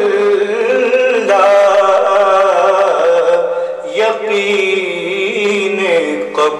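A voice singing an Urdu naat in a chanting style, holding long wavering notes without words, with a steady lower vocal tone beneath; new phrases begin about a second in and again about four seconds in.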